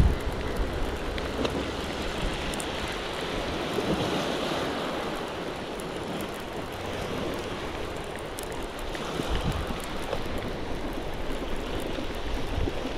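Small waves washing onto a shingle and rock shore, with wind buffeting the microphone: a steady sea-and-wind wash.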